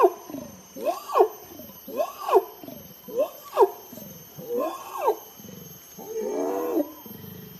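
An animal calling over and over: short pitched calls that rise sharply and drop again, about one a second and often in pairs, then a longer wavering call near the end.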